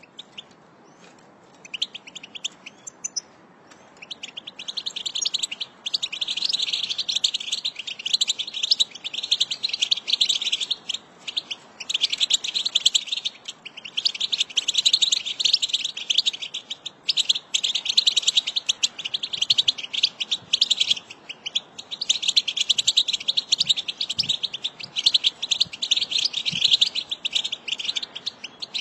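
American goldfinch song: a few scattered chirps, then, from about four seconds in, long runs of rapid twittering notes in bouts of a few seconds each, separated by short pauses.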